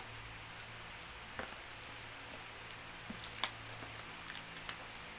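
Fingers picking and scratching at the taped, plastic-wrapped edge of a cardboard shipping box, making scattered light clicks and crinkles, the sharpest about three and a half seconds in.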